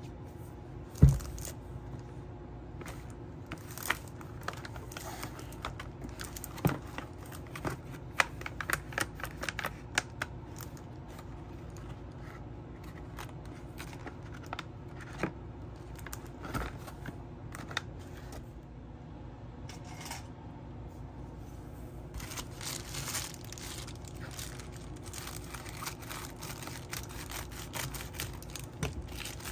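Craft supplies being handled on a tabletop: a loud thump about a second in, then scattered taps and clicks of vinyl rolls and a cardboard box being moved. A plastic mailer crinkles and rustles over the last several seconds.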